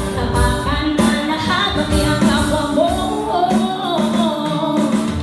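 Live acoustic band music through PA loudspeakers: a strummed acoustic guitar and hand percussion, with a woman singing.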